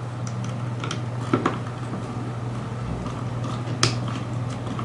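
A few faint clicks and taps of small hand tools working on a rebuildable atomizer's coil deck, the sharpest just before four seconds, over a steady low hum.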